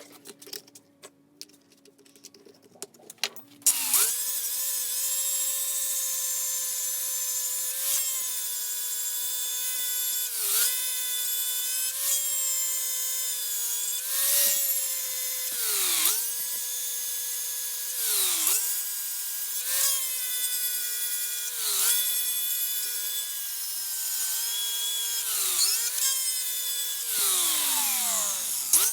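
A small high-speed electric power tool, likely a rotary tool, starts up a few seconds in and runs with a steady high whine. Its pitch sags briefly about every two seconds as it is pressed into the work, and it winds down sharply near the end.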